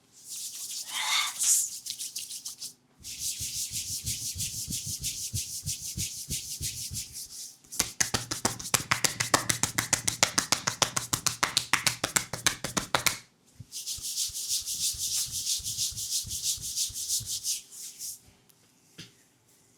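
Massage strokes rubbing briskly over the skin of a leg, a steady hiss, broken in the middle by about five seconds of fast, even tapping strikes on the leg, then rubbing again.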